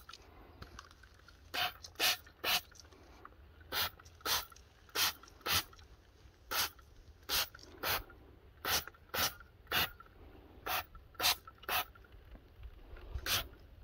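Hand trigger spray bottle squirting wheel cleaner onto an aluminium alloy wheel: about seventeen short spritzes at an uneven pace of one or two a second, after a pause of about a second and a half at the start.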